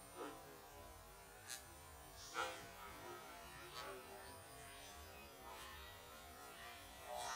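Faint small splashes and plops of a fishing lure being twitched across scum-covered water, about six of them, the loudest a little over two seconds in.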